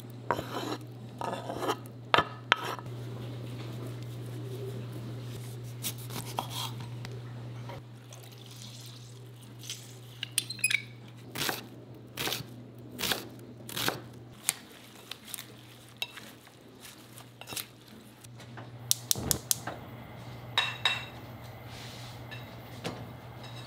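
Food preparation on a wooden cutting board: a chef's knife chopping red onion in a run of sharp knocks, with scraping and clinks of a bowl and utensils, over a steady low hum.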